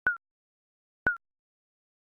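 Digital countdown timer beep sounding once a second: short, sharp blips with a slight drop in pitch, two in this stretch.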